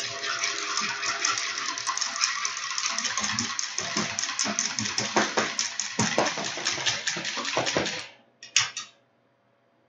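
Wire whisk beating an egg in a small bowl for an egg wash: a fast, steady clatter of the wires against the bowl that stops about eight seconds in, with one short burst of whisking just after.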